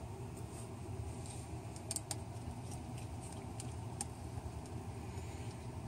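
Faint small clicks of a screwdriver and screws being handled on a laptop screen's metal mounting brackets, a close pair about two seconds in and another near four seconds, over a steady low hum.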